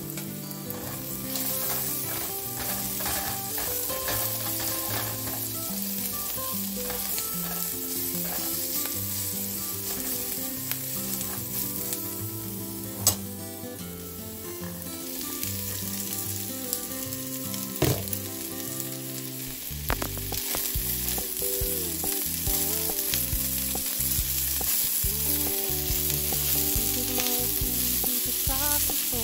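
Onions and garlic sizzling in hot oil in a nonstick frying pan, with two sharp clinks, one about 13 seconds in and another near 18 seconds. From about 20 seconds the sound grows louder and choppier as a spatula stirs and scrapes the food around the pan.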